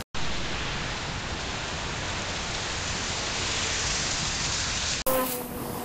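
Steady rain falling, an even hiss. About five seconds in it cuts off abruptly to wind blowing on the microphone.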